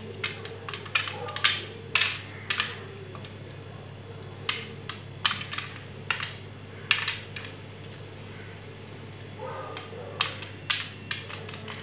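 Sliced almonds dropped by hand onto a metal baking tray, landing in light, irregular clicks and taps that come in small clusters with short pauses between.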